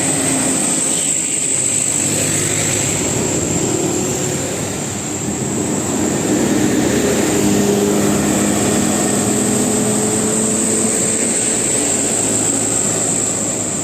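Large bus diesel engine running with a steady drone, its pitch shifting slightly as the bus moves off.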